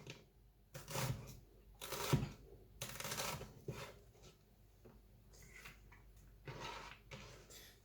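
An onion being cut and handled on a cutting board: a few separate knife strokes and rustles about a second apart, then a quieter stretch and one fainter stroke near the end.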